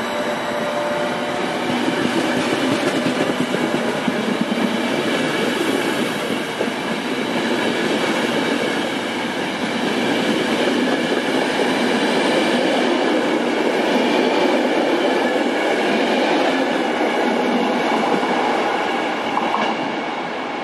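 A rake of Italian Intercity passenger coaches rolling past close by: a steady rush and rumble of wheels on rail, with a few faint steady high tones over it. The sound eases a little near the end as the last coach goes by.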